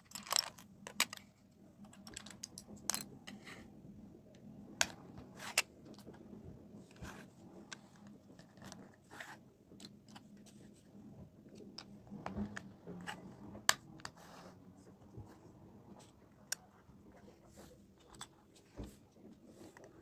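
Plastic LEGO bricks clicking and tapping as they are picked up and pressed onto a baseplate: irregular sharp clicks, several louder snaps among them.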